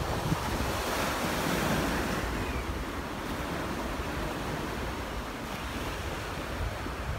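Sea surf breaking and washing up a sandy beach, louder for a moment about a second in, with wind rumbling on the microphone.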